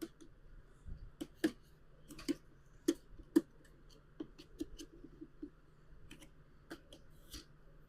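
Hard plastic clicks and knocks from cordless vacuum cleaner parts being handled and pushed together as an attachment is fitted. The clicks are irregular and sharp, with a quick run of small ticks near the middle.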